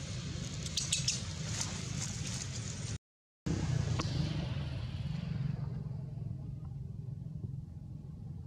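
Steady low outdoor rumble, with a few dry crackles about a second in. The sound drops out completely for half a second about three seconds in, then the rumble carries on, duller.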